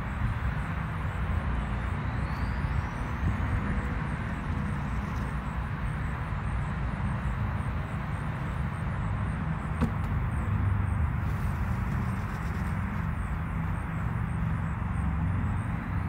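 Steady outdoor background rumble and hiss, like distant traffic, with a single sharp click about ten seconds in.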